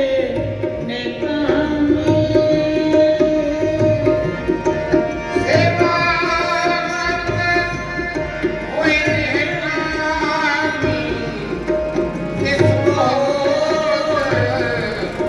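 Sikh devotional kirtan music: sustained melodic tones with some singing over a tabla beat, a low drum stroke about once a second.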